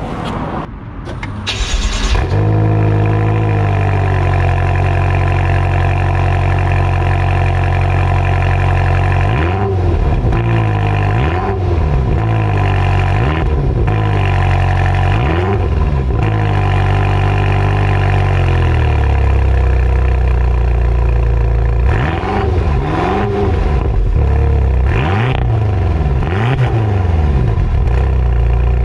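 BMW M5 F10's twin-turbo V8 starting about two seconds in, then idling. Its exhaust is revved in a series of short blips, each rising and falling back to idle, in two groups with idle between.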